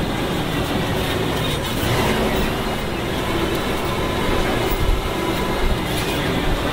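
Open-sided safari truck driving slowly over a rough dirt road, heard from a passenger seat: steady engine and road rumble with a few knocks and rattles.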